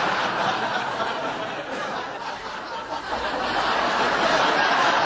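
Studio audience laughing, a steady dense wash of laughter from many people.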